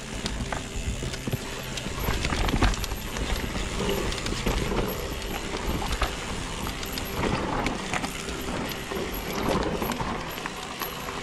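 Electric mountain bike descending a dry dirt singletrack: tyres running over dirt and roots and the bike clattering over bumps, an irregular run of knocks and rattles over a rumble.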